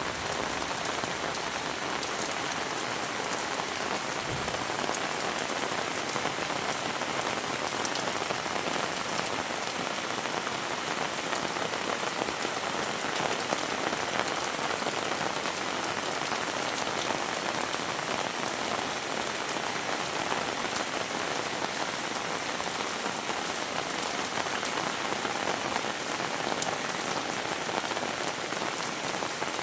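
Heavy rain falling steadily: an even, dense hiss of rain with scattered drop ticks and no let-up.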